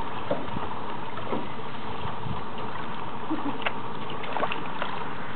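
Kayak paddles dipping into the water, making scattered short splashes and drips over a steady hiss.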